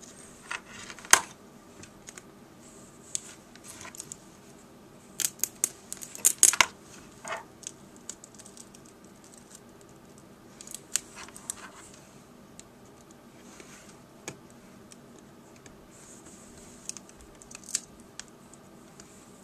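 Irregular light clicks, taps and crinkles of hands handling a laptop LCD panel and peeling its adhesive strip, with a cluster of sharper clicks about five to seven seconds in and quieter stretches between.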